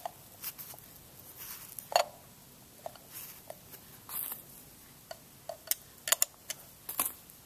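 Handling noise from a 1932 Ford-style tail light being held and positioned: scattered small clicks, taps and brief scrapes, with a sharper click about two seconds in and a quick run of clicks near the end.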